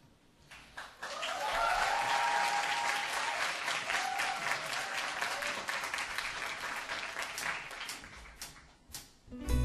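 Audience applauding: the clapping swells about a second in, holds, then thins out and dies away near the end, just as an acoustic guitar begins to play.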